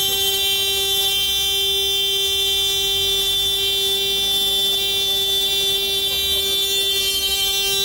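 A car horn sounding one unbroken, steady note, as when a car's horn is stuck on or its alarm is going off, with faint voices beneath it.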